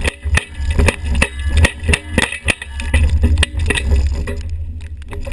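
GMC wrecker rattling and knocking as it plows snow, heard through a camera mounted on its boom: many sharp, irregular rattles and clicks over a deep, steady rumble from the truck.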